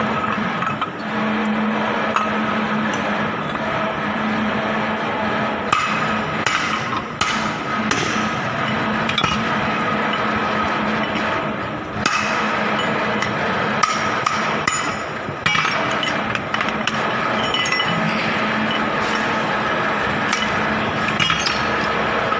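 Metal hand tools knocking and clinking in irregular, scattered strikes over a steady mechanical hum.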